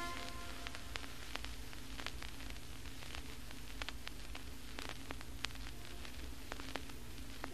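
Faint steady hiss and low hum with scattered small clicks and crackles: the background noise of the recording, with no music playing.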